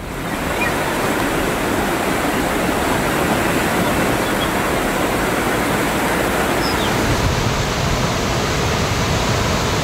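Fast muddy floodwater rushing in a steady, loud torrent, as heard on field recordings of a river in spate.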